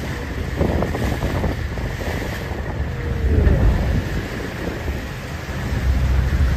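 Wind buffeting the microphone over a steady low rumble, aboard a boat out on the water.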